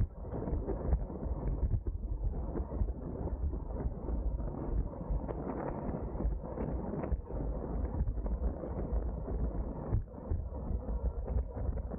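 Wind rushing over the microphone of a rider's camera on a racing bicycle at speed, a steady heavy low rumble with many small ticks and knocks from the bike on the road.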